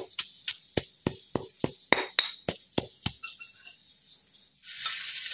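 Pestle pounding in a mortar, about three strokes a second, crushing coriander root, garlic and peppercorns into a coarse paste. Near the end, oil in a hot wok starts sizzling suddenly.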